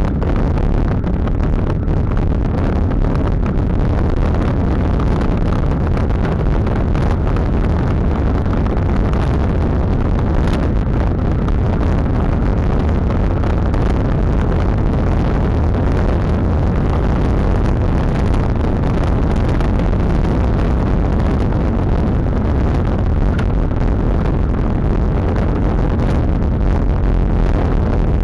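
Steady wind rushing over the microphone of a camera moving fast down a road descent, loudest at the low end, with tyre noise on the asphalt under it.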